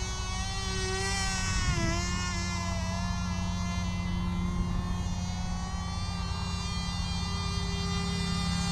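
Cox TD .010 glow engine on a small RC plane flying overhead: a thin, high-pitched buzz, wavering and dipping briefly in pitch about two seconds in. The engine is down on power.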